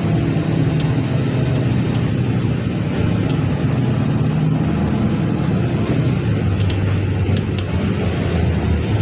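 City bus engine running with road noise, heard from inside the passenger cabin: a steady low hum whose pitch shifts as the bus changes speed, with a few light clicks and rattles.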